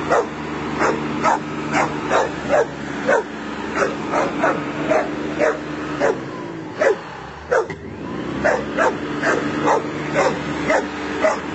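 Bull terrier barking and yipping over and over, about two barks a second, against the steady drone of a running lawnmower engine. The engine drone dips for a moment past the middle, then comes back.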